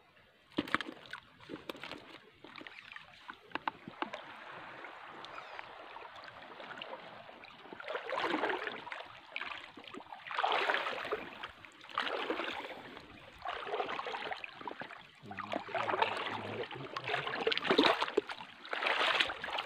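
Someone wading through shallow tide-pool water, a swishing slosh with each step. The steps grow louder partway through, coming every second or two.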